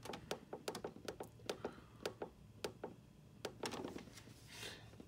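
Up button on a Dramm ProLine irrigation controller's keypad pressed again and again, a quick run of faint clicks that stops about three and a half seconds in, stepping a zone's run time up one minute at a time.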